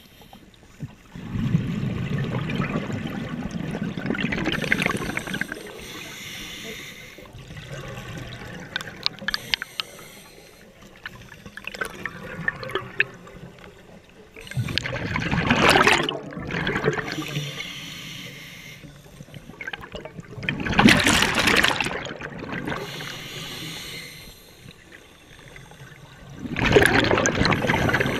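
Scuba regulator exhaust underwater: four loud rushes of exhaled bubbles several seconds apart, with quieter crackling between.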